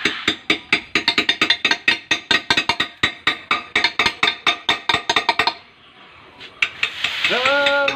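Several hammer-and-chisel strikes tapping in quick, overlapping succession as letters are hand-carved into gravestone slabs, with a song playing under it. The tapping stops a little past halfway, and a held sung note comes in near the end.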